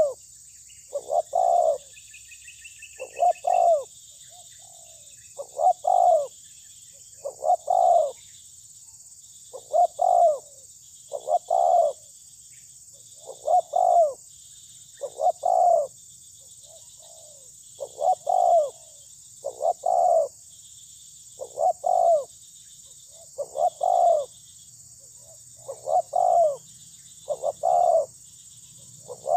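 Spotted dove cooing: a short phrase of two or three low, full coos, repeated regularly about every two seconds.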